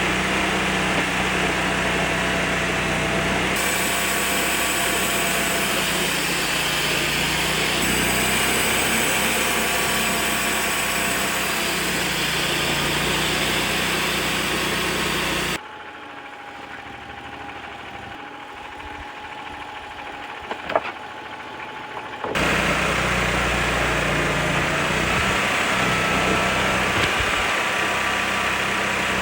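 TimberKing band sawmill running steadily, its engine and blade working through a pine log. About halfway through the level drops suddenly for several seconds, with one sharp click in the quieter stretch, then the full running sound comes back.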